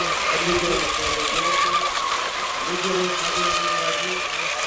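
Racing radio-controlled hydroplane boats' engines running flat out, a steady high whine whose pitch dips and rises as the boats run the course.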